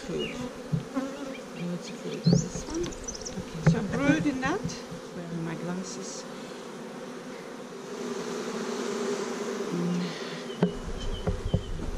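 Honeybees buzzing around an open hive as frames of bees are handled, a steady hum with individual bees flying close past, their pitch sliding up and down. A few light knocks of the wooden frames, and a low rumble comes in near the end.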